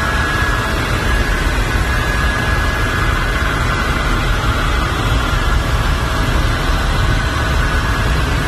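Helicopter running, heard from inside the cabin: a loud steady noise with a deep rumble and a thin, steady high whine over it.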